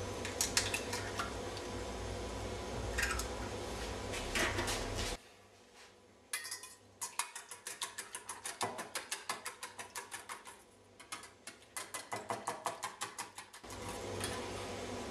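Wire whisk beating two eggs in a small stainless steel bowl: fast, even clinking strokes against the metal, about six a second, in two long runs starting about six seconds in. Before the runs there are only a few scattered clinks.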